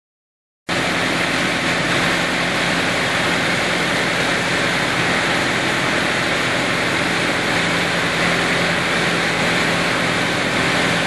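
Crawler down-the-hole drill rig running, a steady, loud machine drone with a low hum that cuts in abruptly just under a second in.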